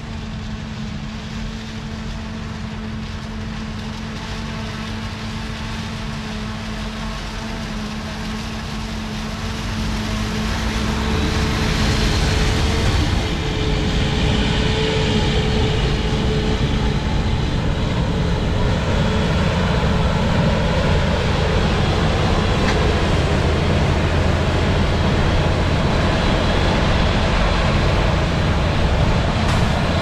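Self-propelled forage harvester running steadily as it chops corn for silage, with a silage truck running alongside; the machine noise grows louder about ten seconds in and then holds steady.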